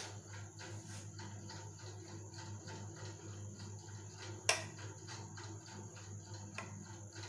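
Faint small clicks and taps over a steady low hum, with one sharper click about four and a half seconds in.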